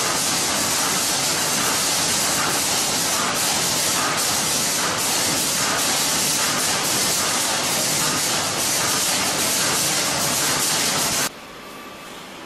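Staple-making machinery running, a loud steady hissing noise with faint irregular knocks. It cuts off suddenly near the end, leaving a much quieter steady hiss.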